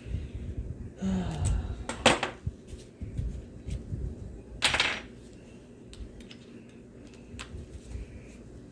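Small clicks, knocks and clatter of hand tools and RC truck parts being handled, with two sharper strikes about two seconds in and near the middle.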